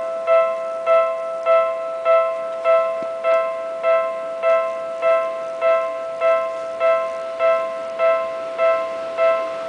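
Japanese electronic level-crossing warning bell, the kind heard at railway crossings, ringing a steady two-tone 'kan-kan' about 1.7 times a second. Each strike is identical, with a sharp start and a quick decay.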